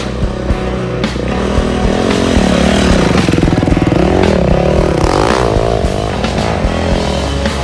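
Dirt bike engine revving up and down as the bike rides past close by, loudest in the middle, over background music with a steady beat.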